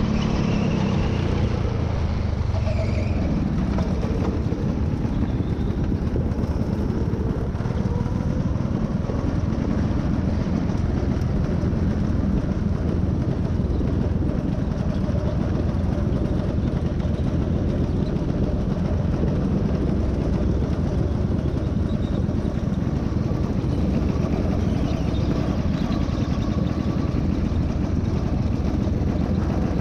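Go-kart engine running on the throttle, heard from on board the kart, with its pitch shifting in the first few seconds and then holding steady.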